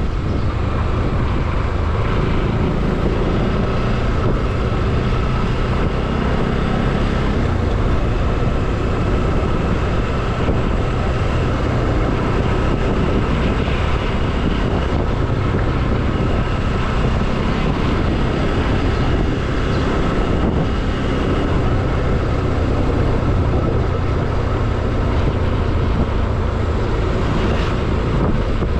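Motorcycle engine running steadily at riding speed, with wind noise on the microphone.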